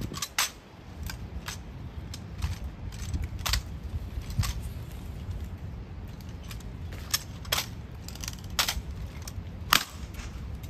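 Honor guard drill: a string of sharp, irregularly spaced clicks and knocks of rifles and boots, over a low steady rumble. The loudest knock comes near the end.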